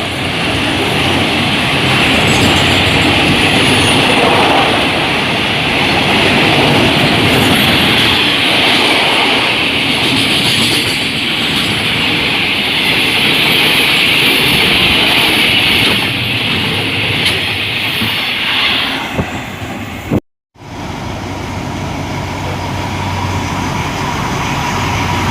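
Train cars rolling past on the rails, a steady loud rumble with a high ringing wheel noise. About 20 seconds in it cuts off suddenly, and a steady engine hum follows.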